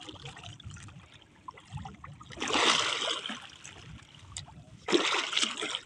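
Sea water lapping and splashing against the hull and outrigger float of a small outrigger boat, with two louder splashes, one about two and a half seconds in and one about five seconds in.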